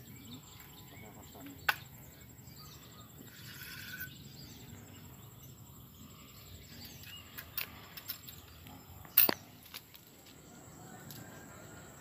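Quiet outdoor ambience with scattered sharp clicks, the loudest about nine seconds in.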